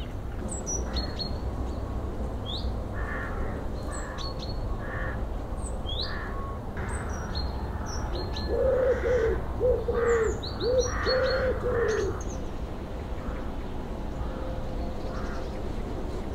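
Birds calling: frequent short, high chirps from small birds throughout, and about halfway through a louder, lower-pitched call repeated four times in quick succession. A steady low rumble runs underneath.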